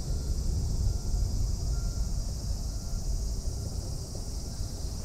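Wind rumbling on the microphone outdoors over a steady high insect drone.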